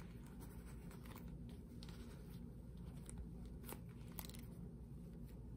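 Faint handling noise from a quilted leather zip-around Tory Burch Kira chevron wallet being turned in the hands: soft rustles and scattered small clicks over a steady low background hum.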